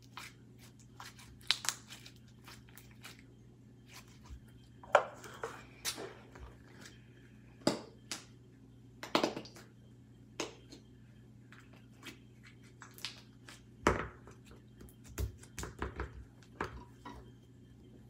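Stretchy slime being squished and pulled in the hands, making irregular wet clicks and pops, with a few dull knocks in the later seconds. A faint steady low hum runs underneath.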